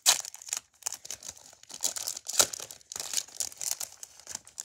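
Foil wrapper of a Pokémon trading-card booster pack being torn open and crinkled by hand: an irregular run of crackles and rips, the sharpest near the start and about two and a half seconds in.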